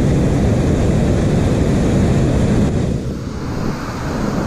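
Steady low roar of water pouring over a dam spillway, dipping slightly about three seconds in.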